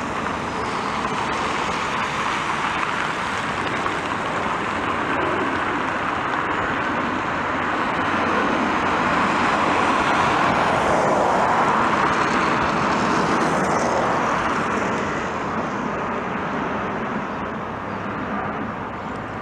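Dassault Falcon 2000S business jet on landing approach with its gear down, the noise of its two Pratt & Whitney Canada PW308C turbofans passing overhead. It builds to a peak a little past halfway, where the tone briefly sweeps, then fades as the jet moves away.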